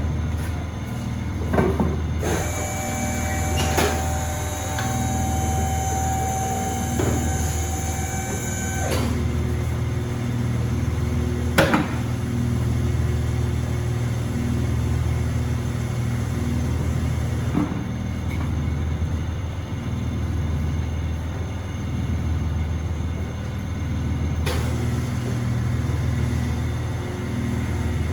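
Tire shop machinery running with a steady low hum. Starting about two seconds in, a hissing noise lasts about seven seconds, and a few sharp clanks come through.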